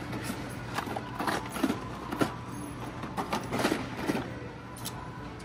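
Packaged die-cast toy cars being handled: irregular crinkles and clicks of plastic blister packs and card backs, with two sharper clacks a couple of seconds in, over a faint steady hum.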